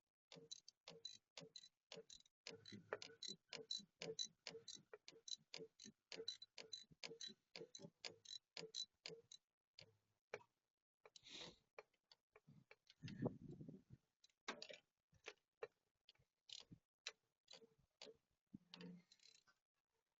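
Ratchet wrench with a deep 17 mm socket clicking in quick, even strokes, about four clicks a second, as it tightens the PCV valve into its threads; past the middle the clicks come more slowly and one brief rustling scrape is heard.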